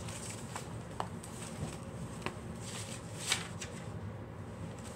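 Pages of a spiral-bound paper sketchbook being handled and turned: a few soft rustles and clicks, the loudest about three and a half seconds in.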